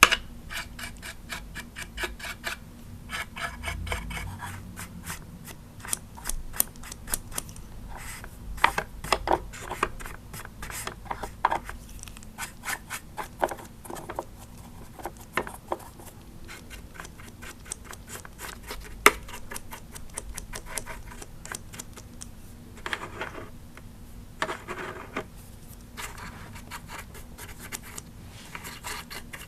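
A small brush's bristles scratching over the molded plastic of a Lemax Spooky Town animatronic Halloween scene in a quick series of short strokes.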